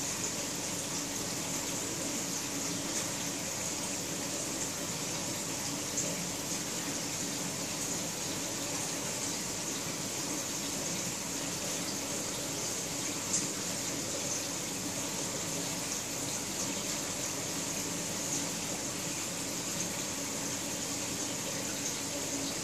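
Steady hiss of running water from an aquarium filter, with a faint low pump hum underneath and a couple of faint taps.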